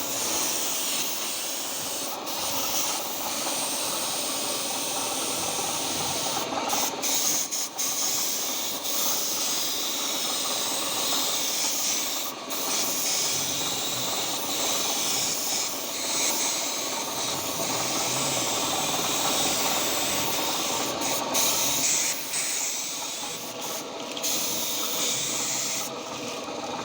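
Homemade air compressor driven by a used water-pump motor, running with a steady hum under a loud hiss of rushing air. The hiss cuts out briefly several times and eases near the end.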